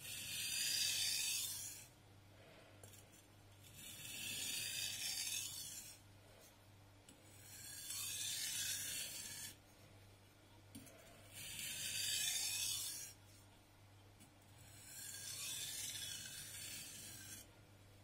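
A VG10 Damascus nakiri blade is pushed across a whetstone in five slow sharpening strokes, each about one and a half to two seconds long and about four seconds apart. These are single strokes alternating between the two sides, the finishing stage of the sharpening.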